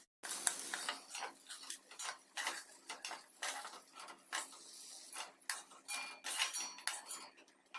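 Spoon or spatula stirring in a cooking pan, scraping and clinking against the metal in short strokes, roughly two a second at an uneven pace.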